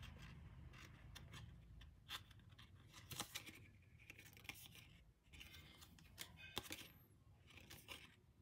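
Stiff paper photo cards being handled and flipped in the hands: faint, irregular clicks and scraping slides of card against card.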